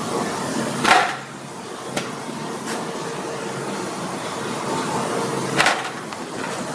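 Steady hum of a work room with a faint steady tone, broken by two sharp knocks, one about a second in and one near the end, and a couple of faint clicks between them.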